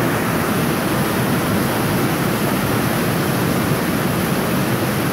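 Heavy rain coming down on a metal roof, heard from inside the garage as a steady, dense rush of noise with no letup.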